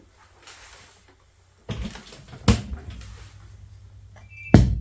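Knocks and clicks from handling and switching on a low-end home theatre system, the loudest thump near the end. A steady low hum sets in from its speaker about two seconds in. The system shows some activity but does not come fully on.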